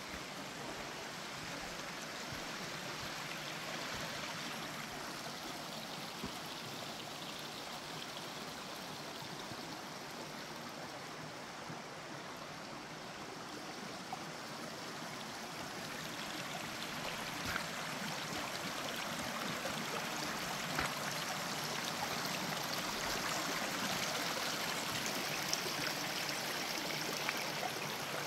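A creek's water running steadily, a continuous rushing noise that grows louder over the second half.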